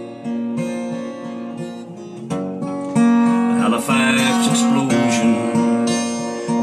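Cutaway acoustic guitar strummed through an amp set with delay and reverb, its chords ringing on between strums. It grows louder from about three seconds in.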